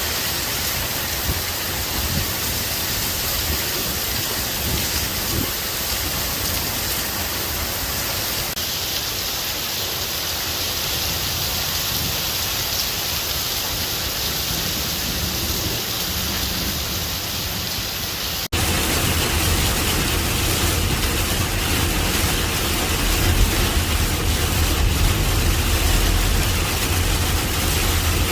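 Steady hiss of heavy rain and wind in a storm. About two-thirds of the way in, the sound cuts abruptly to a slightly louder stretch with a heavier low rumble.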